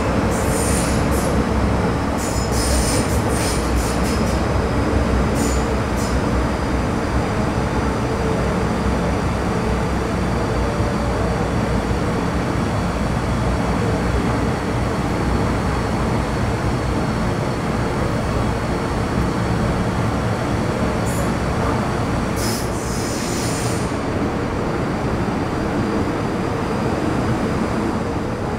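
Metro Cammell M-Train (CM-Stock) metro car running at speed, heard on board: a steady rumble of wheels and running gear. High wheel squeals cut in briefly several times in the first few seconds, and again around twenty-one to twenty-four seconds in.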